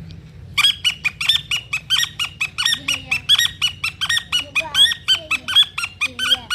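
A man imitating the call of a francolin (titar) with his voice: a long, rapid run of short, shrill, repeated notes, about four a second, starting about half a second in.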